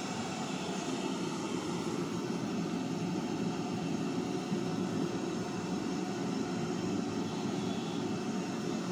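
Large gas burner under a cooking pot roaring steadily with an even rushing noise.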